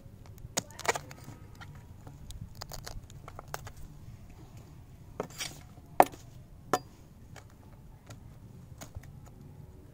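Cleaver cutting the leaves and stalks off a cauliflower head on a plastic cutting board: a handful of sharp clicks and knocks, the loudest about six seconds in, among fainter ticks.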